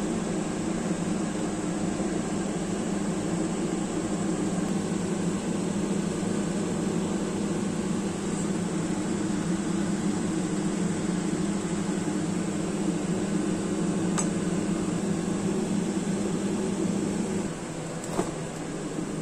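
Steady whirring hum of a fan-driven appliance running, dropping in level about three seconds before the end, with a short click near the end.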